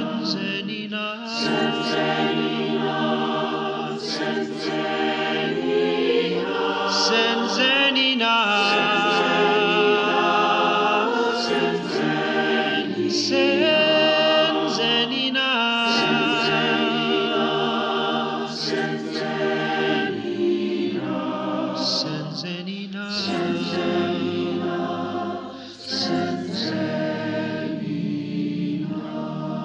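A choir singing a hymn, several voices in harmony with vibrato.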